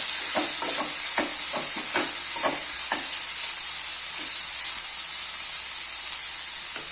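Onions with green chillies and curry leaves sizzling in oil in a pan while being sautéed, a spoon scraping and stirring them about twice a second for the first three seconds or so; after that only the steady sizzle goes on.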